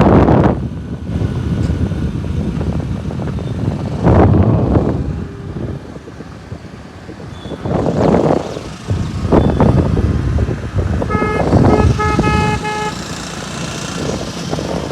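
Busy road traffic rising and falling in loud swells, with a vehicle horn honking a rapid string of short toots about eleven seconds in.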